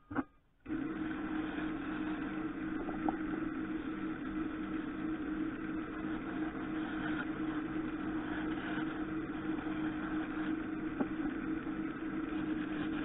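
A wood lathe is switched on with a click and then runs steadily with a constant motor hum.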